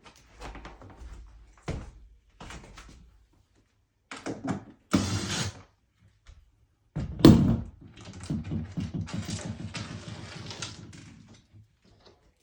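Wooden bed headboard panels being handled: a few knocks and rustles, a sharp thud about seven seconds in, then a few seconds of rattling scrape that fades out.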